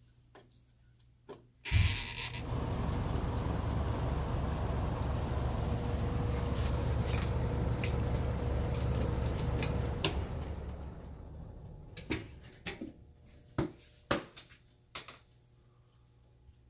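Whole-house fan switched on at the wall: it starts suddenly, with the ceiling shutter louvers pushed open, and runs with a steady low rumble of moving air and a faint hum. About ten seconds in it is switched off and winds down over a few seconds, and the louvers fall shut with several sharp knocks.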